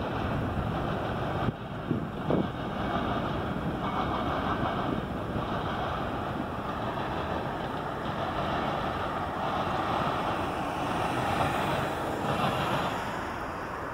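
Wind buffeting the microphone over the noise of cars driving past on the road.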